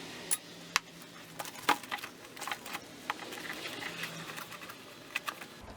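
Scattered light clicks and ticks of a screwdriver and small metal trim parts being handled while screws are taken out of a vinyl car door panel.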